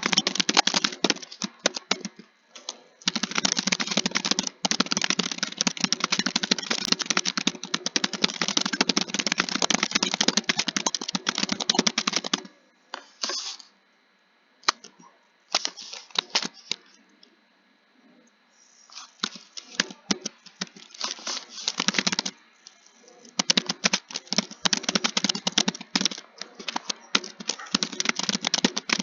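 Computer keyboard being typed on fast, in a dense run of keystrokes. About halfway through the typing stops for several seconds, leaving only a few single key presses, then fast typing resumes.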